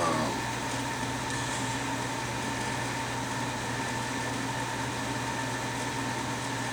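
Steady mechanical room hum with a few constant tones and no change in level.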